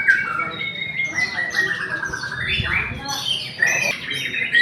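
White-rumped shamas (murai batu) singing in competition: a varied song of whistled glides and rapid trills, with more than one bird singing at once.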